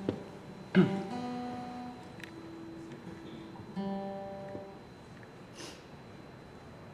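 Acoustic guitar strummed: a chord struck about a second in and another just before four seconds in, each left to ring out and fade.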